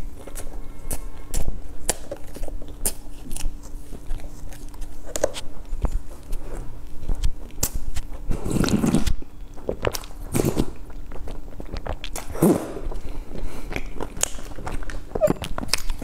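Close-miked eating of soft sponge cake: wet chewing with many small mouth clicks and lip smacks, and in the middle a few louder sips and swallows from a bowl.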